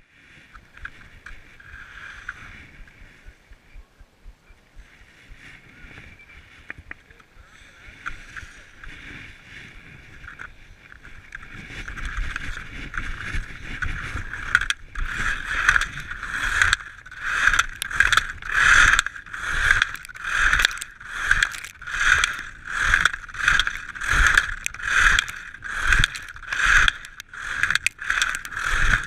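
Skis on firm snow in a short slalom: a soft steady hiss at first, then from about halfway the edges scrape through each turn in an even rhythm of a little over one turn a second, louder with speed.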